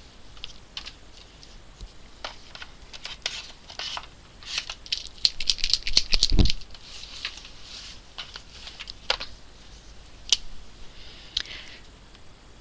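Paper, a sketchbook and pens being handled on a tabletop: light clicks and scratchy rustling, busiest about five to six seconds in, with one dull thump as the sketchbook is shifted.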